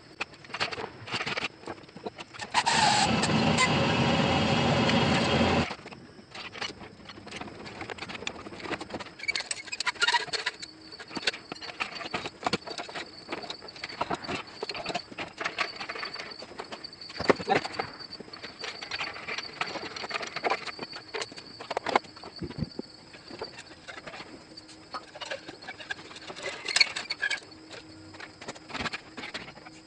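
Scattered metallic clinks and knocks of hoist chains and metal parts as an engine hoist lifts an engine and transmission out of a car. About three seconds in comes a loud, steady mechanical noise lasting about three seconds.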